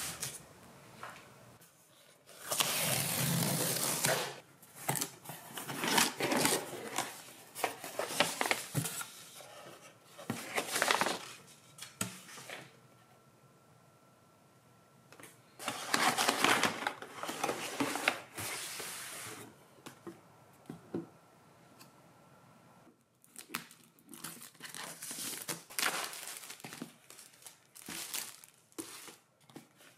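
Packaging of a Sony WH-1000XM3 headphone box being opened by hand: plastic film and wrapping tearing and crinkling in several bursts with quiet pauses between.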